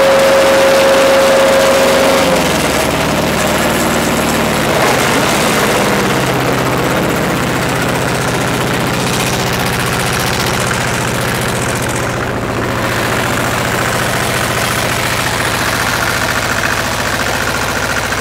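Allis-Chalmers 5020 tractor's small two-cylinder diesel engine idling steadily. About two seconds in, a high steady whine cuts off.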